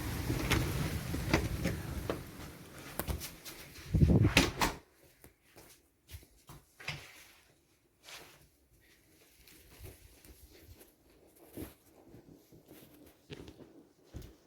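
Steady outdoor storm noise of rain and wind, broken by a loud knock and handling sound about four seconds in. It then cuts off sharply to a quiet indoor room with scattered small clicks and taps.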